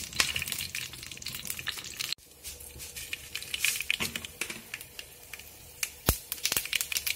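Mustard seeds crackling and popping in hot coconut oil in a nonstick pan, a scatter of sharp pops over a faint sizzle. It breaks off briefly about two seconds in, and there is one louder click about six seconds in.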